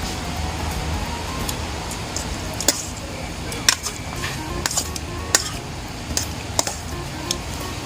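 A spoon clinking against a bowl about eight times at an irregular pace while tossing dressed warek-warek (grilled pork in vinegar and chili), over steady background music.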